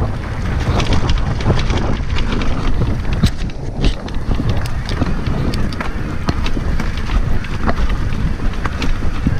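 Wind buffeting a helmet-mounted action camera's microphone while riding a mountain bike, with frequent sharp clicks and rattles from the bike jolting over rough, rocky trail.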